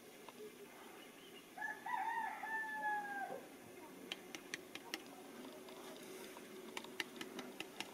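A rooster crowing once, a single call of just under two seconds starting about a second and a half in, held steady and dropping off at the end. Scattered faint clicks follow.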